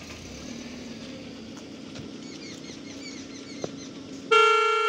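A vehicle horn sounds one steady blast of about a second near the end. It starts and stops abruptly and is the loudest thing here. Before it a steady low hum runs along, with birds chirping in the background.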